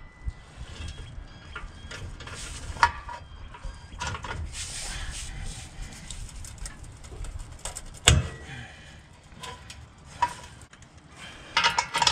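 Ratchet and socket on a long bar working the rusty exhaust flange bolts of a car's front pipe, with scattered sharp metal knocks and clinks, the loudest about eight seconds in, and a quick run of ticks near the end.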